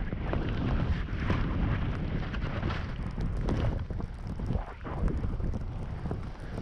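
Wind buffeting a GoPro's microphone while skiing down through deep powder, over the rushing hiss of skis through the snow; the noise rises and falls without a break.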